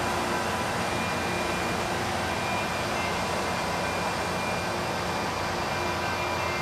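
LORAM rail grinder running as it moves along the track: a steady rushing drone with a few faint, steady whining tones over it.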